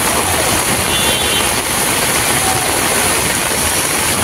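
Steady traffic noise of cars driving slowly through a flooded street, engines running and tyres pushing through water.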